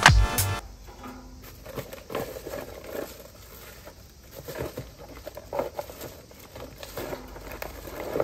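Lumps of charcoal clinking and clattering as they are dropped one by one into a metal barbecue grill, with a plastic bag rustling.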